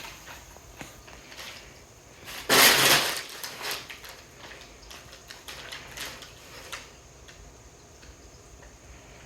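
Packaging rustling and crinkling as cats play in it, with one loud burst of rustling about two and a half seconds in, then scattered small scratches and taps.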